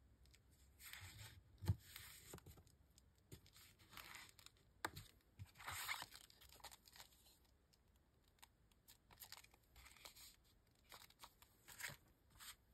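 Faint rustling and sliding of kraft paper envelopes being handled, pressed flat and shifted about, with a couple of light knocks about two and five seconds in.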